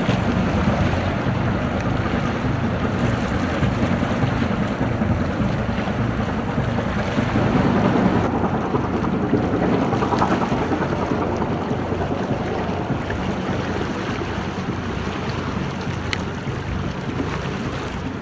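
Low steady drone of a passing pusher tug's diesel engine under wind rushing on the microphone, with the sea's wash; the sound eases off slightly near the end.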